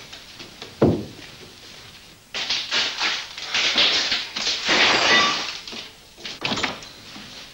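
A door thuds shut about a second in, followed by a few seconds of loud, rough noise.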